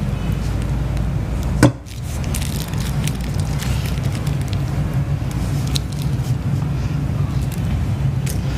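A steady low hum, with a single sharp click a little under two seconds in.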